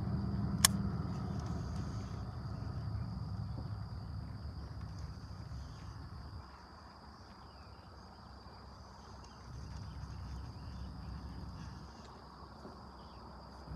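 Steady high-pitched insect chorus, an even trill, over a low rumble, with one sharp click under a second in.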